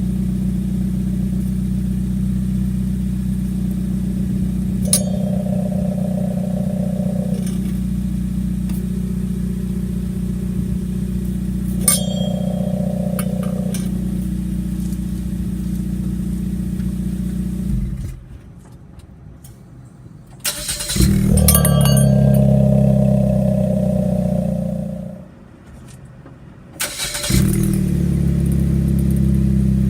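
A vehicle engine idling steadily through its muffler, heard in turn with and without the muffler's silencer insert. It drops away twice, and after each gap it comes back louder.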